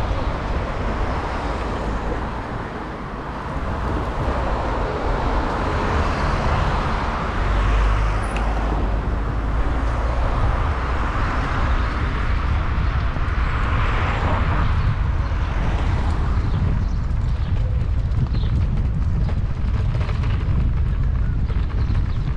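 Street traffic: cars passing, with two louder passes that swell and fade about seven and fourteen seconds in, over a steady low rumble.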